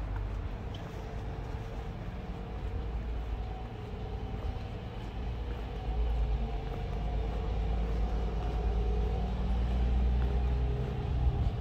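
Street traffic: a motor vehicle passing close by with a low engine and road rumble. It grows louder from about halfway in and drops away near the end.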